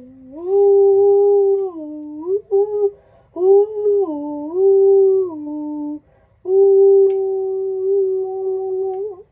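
A person humming a short tune. Several held notes slide smoothly from one pitch to the next, with brief breaks about three and six seconds in.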